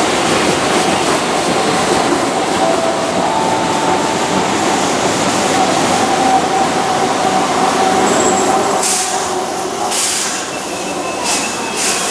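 Keihan 2600-series electric train rolling past on curved track, its wheels squealing in several thin held tones over the steady running noise. A few sharp clatters come near the end as the last cars pass.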